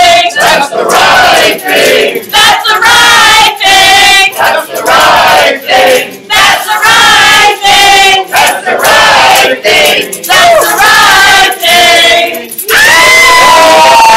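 A group of amateur choir singers loudly singing and chanting a protest song in short, rhythmic phrases. Near the end the voices break into one long held shout that slides down in pitch.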